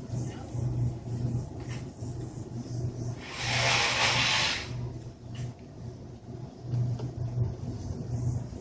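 Steady low hum, with a loud hiss lasting about a second and a half that starts a little over three seconds in.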